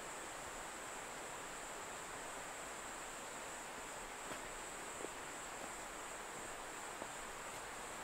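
Steady rush of a mountain valley stream, with a constant high insect drone over it and a few faint ticks around the middle.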